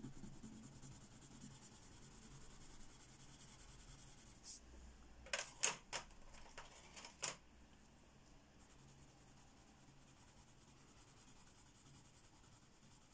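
Mostly quiet room tone, broken about five to seven seconds in by a handful of light, sharp clicks as a wooden coloured pencil is put down and the next one picked up.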